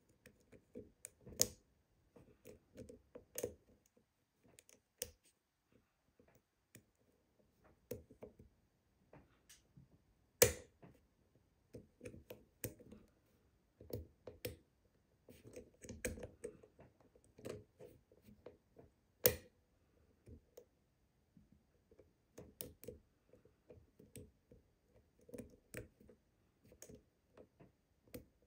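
Steel lock pick and tension wrench working the pins of an old UAP euro cylinder: irregular light clicks and scraping of metal on metal, with two sharper clicks about ten and nineteen seconds in.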